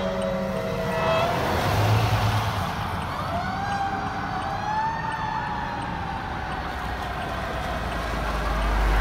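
Emergency vehicle siren: a steady horn-like chord that stops about a second in, then a slow wail that rises and falls away as the apparatus moves off, over traffic noise. A low rumble builds near the end.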